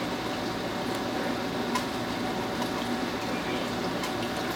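Steady room noise, an even hiss and hum, with a faint click a little under two seconds in.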